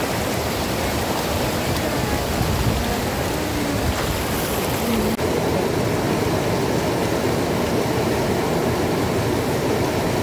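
Mountain river rushing steadily over rocks in white-water rapids, with a brief break about five seconds in.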